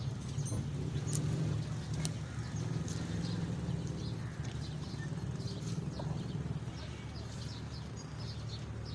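Steady low rumble of a running engine, with scattered light clicks and knocks over it.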